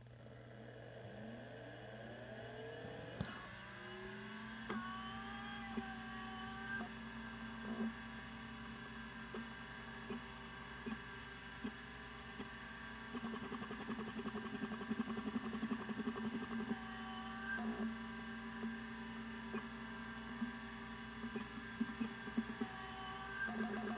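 CMI 6426S hard disk drive spinning up: a rising whine over the first few seconds, one sharp click about three seconds in, then the spindle runs at a steady pitch while the heads tick and chatter through the drive's factory seek test. The ticking is busiest from about halfway through and again near the end.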